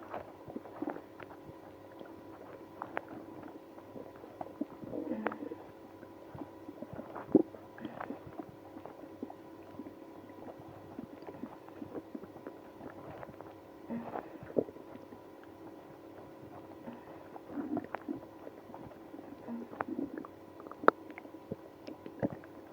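Stomach and bowel gurgling, with irregular short gurgles and small pops and clicks, the sharpest about seven seconds in and again near the end. These are the gut noises of irritable bowel syndrome after drinking milk and prune juice.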